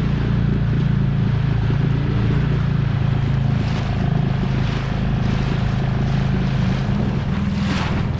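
Dinghy outboard motor running steadily.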